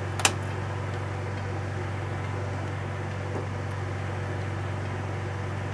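Steady hum and hiss of a workstation ventilation fan, with one sharp click about a quarter second in.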